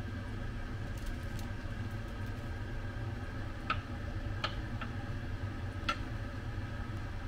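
Kitchen knife cutting a block of butter into cubes on a wooden cutting board: four sharp knocks of the blade on the board around the middle, over a steady low hum.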